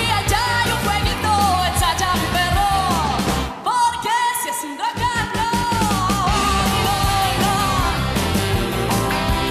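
Rock song with a woman singing lead over electric guitar and a full band. About three and a half seconds in the band's low end drops out for a second or so while her voice carries on, then the band comes back in.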